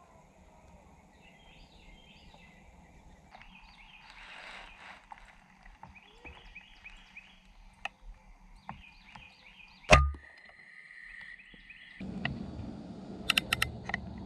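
Birds chirping over a quiet outdoor background, then about ten seconds in a single sharp crack of a PCP air rifle shot, an FX Impact .30. Near the end, after the background grows louder, there is a quick run of sharp clicks.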